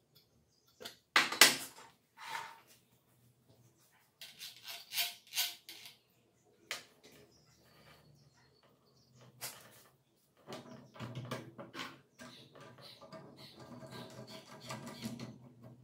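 Metal parts of an angle grinder and its metal stand being handled: scattered clinks and knocks of metal on metal and a spanner, the loudest about a second in. In the last five seconds comes a longer stretch of rubbing and rattling as the grinder is fitted into the stand's clamp.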